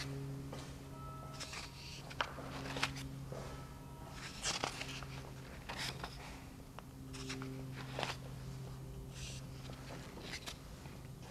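Paper pages of a spiral-bound sketchbook being turned by hand, several short rustles at irregular intervals, over a steady low hum.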